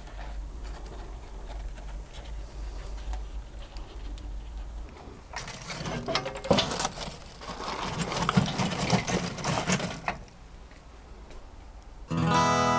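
Metal grill grate and lumps of charcoal clattering and scraping, loud and dense in the middle for about five seconds after a quieter start. Acoustic guitar music comes in just before the end.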